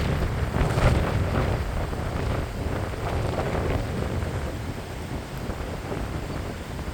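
Wind buffeting the microphone over the rush of surf on a Baltic Sea beach, strongest in the first second or so and easing a little after.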